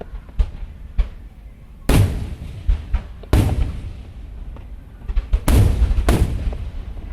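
Aerial firework shells bursting in a string of sharp bangs, a few faint ones at first, then louder ones about two seconds in, three and a half seconds in, and a close cluster near the end, each trailing off in a long rumble.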